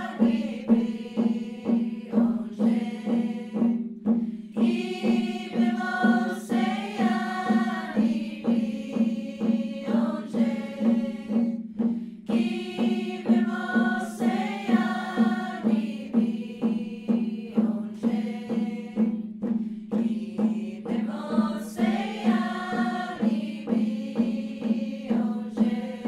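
A group of voices sings a chant-like song in unison phrases over a steady drum beat of about two strokes a second; the singing pauses between phrases while the drum keeps on.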